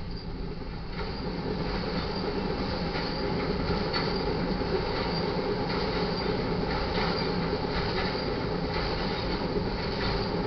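Crude oil tank cars of a freight train rolling past: steel wheels rumbling and clacking over the rail joints, growing louder about a second in, with brief faint high wheel squeals.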